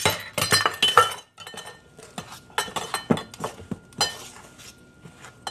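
Metal utensil clinking and scraping against a stainless steel mixing bowl while stirring a thick batter, with a metal measuring cup knocking against it. A quick run of clinks comes first, then scattered single clicks.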